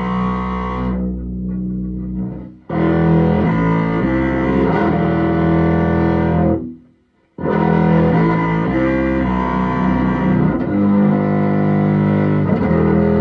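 Instrumental music on upright bass with effects, sustained layered notes. The sound fades and cuts back in sharply about two and a half seconds in, then drops out briefly around the middle and restarts abruptly.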